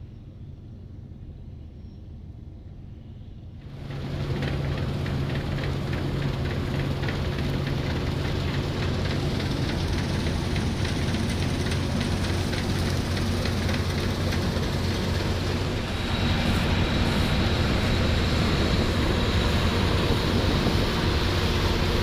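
Combine harvester running and cutting a cereal crop: a steady diesel engine hum under the hiss and rattle of the header and threshing drum. It is faint and distant at first, then suddenly much louder about four seconds in, as close to the machine.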